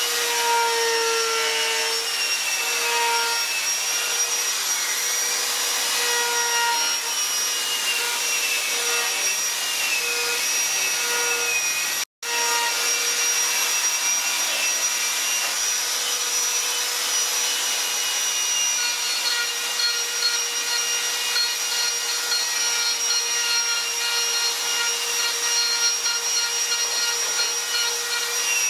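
Handheld electric rotary carving tool with a burr bit running with a steady high whine as it grinds into wood. Its pitch wavers slightly as the load changes. The sound cuts out for a split second about twelve seconds in.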